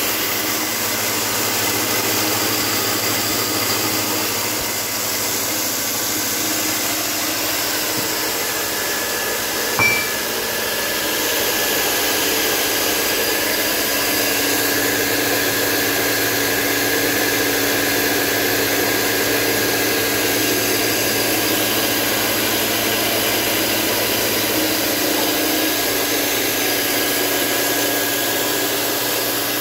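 A 3 HP mini rice mill, driven by an electric motor, running steadily under load as it mills rice, with the milled grain pouring down its chute. There is a single brief click about ten seconds in.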